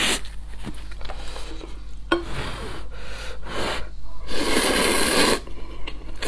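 A person slurping spicy instant noodles, one long loud slurp about four seconds in, preceded by sniffing and short breaths through the nose.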